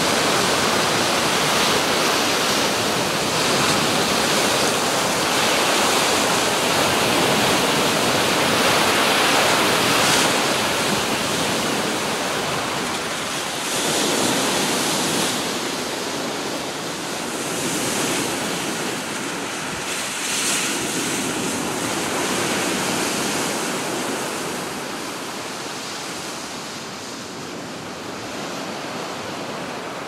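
Rough sea surf breaking on a pebble beach in strong wind: a continuous rush of water with several waves crashing in as louder surges, easing off somewhat in the second half.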